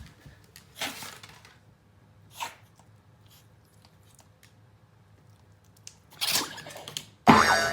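Senior Pomeranian sneezing in short, sharp bursts: one about a second in, another at about two and a half seconds, then two more near the end, the last the loudest. The owner wonders whether the sneezing is hay fever.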